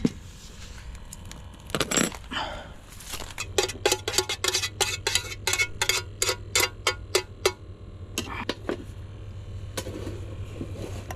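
Metal mess tin and lid clinking and clicking as they are handled by a small gas camping stove. There are a few single knocks, then a rapid run of light clicks, about five a second, for about four seconds. A low steady hum starts along with the run.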